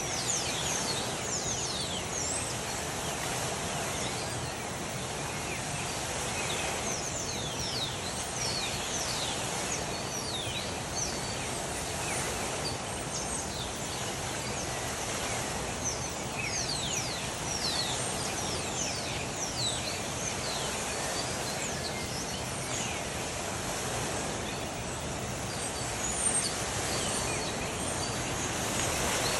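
Birds chirping at dawn: many short, high chirps that fall quickly in pitch, coming in bouts, over a steady background noise.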